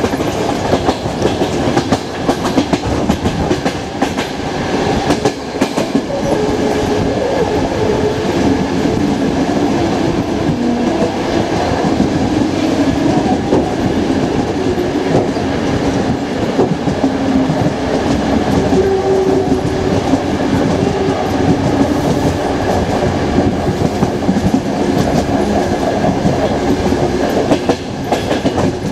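Express passenger train running along the line, heard from on board: a steady rolling rumble of the coach with the repeated click of its wheels over the track.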